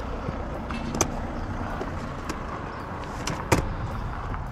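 Steady low rumble of road traffic, with a few sharp clicks of metal rings and display trays being handled on a table. The loudest click comes about three and a half seconds in, and another about a second in.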